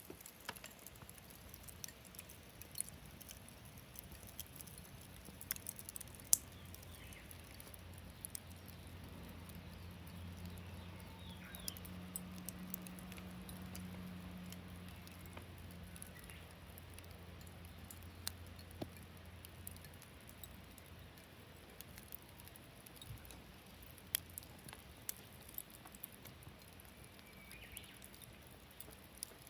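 Campfire wood crackling, with scattered sharp pops and snaps throughout, and faint bird calls now and then. A low steady hum rises in about a quarter of the way in and fades out about two-thirds through.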